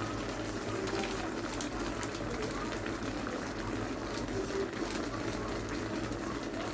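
Seafood stir-fry sizzling in a wok, a steady hiss with scattered sharp clicks.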